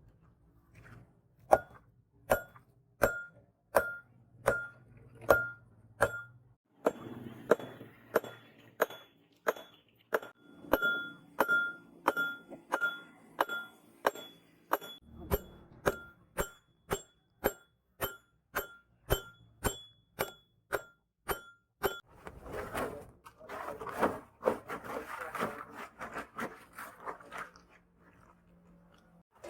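Blacksmith's hammer blows on steel over an anvil, a ringing clink repeated about every three-quarters of a second, with a short pause about six seconds in. About three-quarters of the way through the strikes stop and give way to several seconds of scraping noise.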